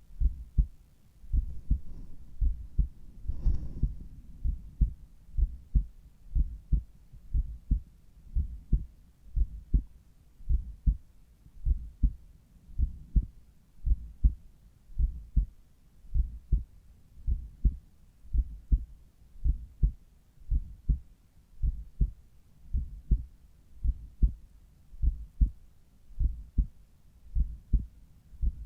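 Human heartbeat heard at the cardiac apex through a Littmann Cardiology IV stethoscope: steady paired lub-dub beats, about one a second. A brief rustle of the chest piece comes about three seconds in.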